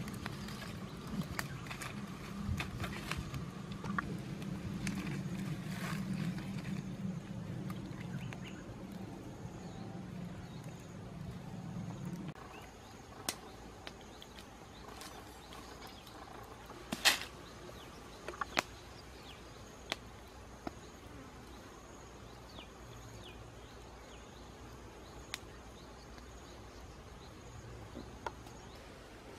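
Open wood fire crackling with scattered sharp pops, over a faint steady high whine. For about the first twelve seconds a low steady rumble sits underneath, then stops abruptly.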